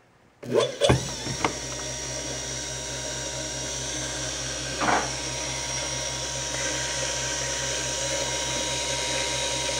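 A DM-28 dynamotor switching on about half a second in with a few clicks, spinning up within a second and then running steadily with a low hum and a high whine. This is its first power-up after a stuck commutator brush was freed and the bearings cleaned and regreased; it runs with a little brush noise, judged not too bad. There is a brief rasp about five seconds in.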